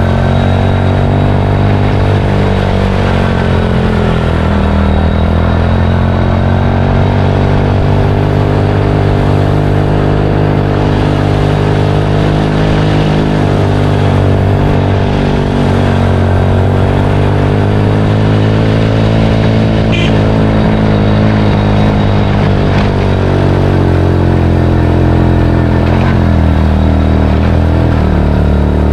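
A vehicle engine running while under way, its pitch rising and falling as the throttle changes, with road noise and a couple of faint clicks.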